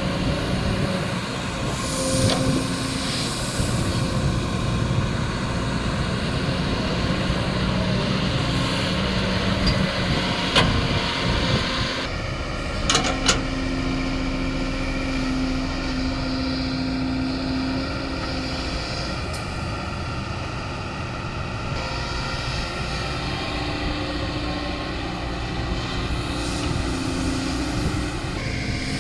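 Kobelco SK220 hydraulic excavator's diesel engine running steadily under working load, its pitch shifting now and then as the hydraulics are worked. There are a few short, sharp knocks, about ten and thirteen seconds in.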